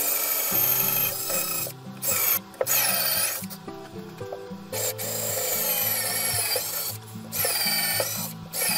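Cordless drill drilling into a softwood block, running in several bursts with short stops, its motor whine rising and falling in pitch as the trigger is worked. Background music plays underneath.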